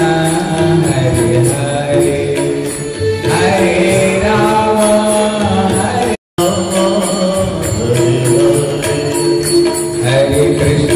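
Devotional kirtan: voices singing a Hindu mantra to a steady beat of jingling hand percussion. The sound cuts out for a moment about six seconds in.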